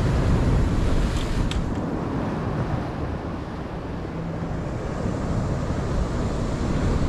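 Ocean surf washing on the beach with wind buffeting the microphone, easing a little midway and building again. A single short click about a second and a half in.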